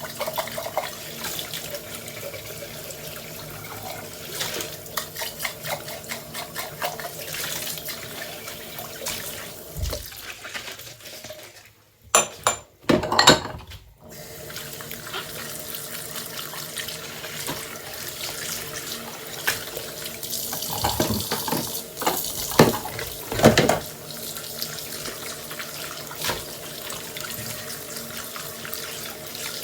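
Tap water running into a kitchen sink while dishes are washed, with scattered clinks and knocks of dishes. About twelve seconds in, the water stops for about two seconds while a few sharp clatters sound, then runs again; a cluster of louder knocks comes a few seconds past the twenty-second mark.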